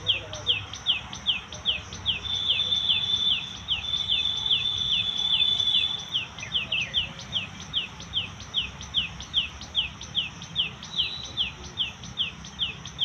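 Rapid, regular series of short high chirps that each sweep downward, about three a second, with a steady high whistle-like tone held over them for a few seconds early on and again briefly near the end.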